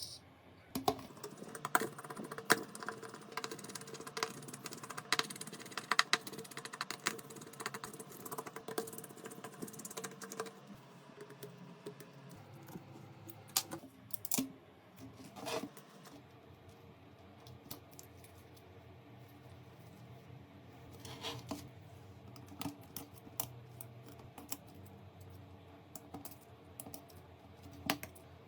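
Small clicks and taps of tools and parts being handled during a smartphone repair, coming thick and fast for the first ten seconds or so, then scattered.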